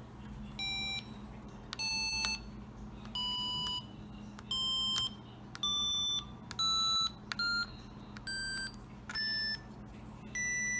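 Small speaker driven by a DE1-SoC board playing short electronic tones, one for each keypad button press. There are about ten beeps of roughly half a second each, every one a little higher in pitch than the last, as the keys go up toward the top of the keypad.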